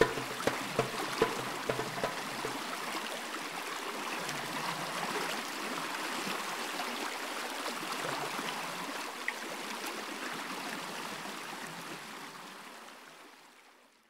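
Running water like a stream or waterfall, a steady rushing that fades out toward the end. The last few percussion strikes die away in the first couple of seconds.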